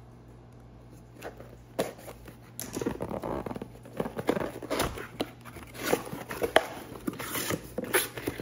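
Cardboard shipping box being opened by hand: packing tape slit and pulled away, then the cardboard flaps scraping and popping open and the packaging inside rustling. Little sound for about the first two seconds, then irregular crackling and scraping.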